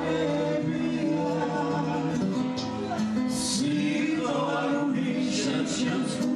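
Men and a woman singing a slow song in harmony over acoustic guitar, the voices holding long notes together.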